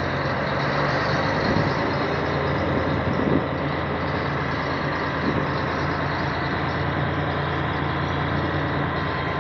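Truck's diesel engine running steadily, heard from inside the cab as the truck turns slowly.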